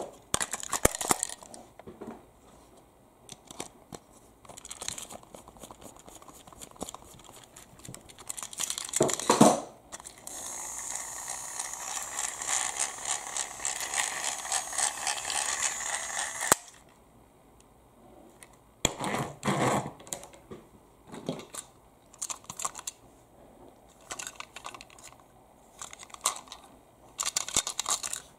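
Plastic clicks and rattles of a battery-powered Trackmaster toy engine being handled, its body shell and motor chassis turned and fitted together. In the middle, the toy's small electric motor and gears whir steadily for about six seconds, then cut off suddenly.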